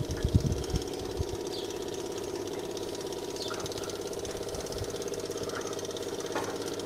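Electric fuel-priming pump on an excavator's diesel engine running steadily with a fast buzzing "rrr", pumping diesel through the fuel filters to bleed out air that got in when the tank ran dry. A few low bumps of handling come in the first second.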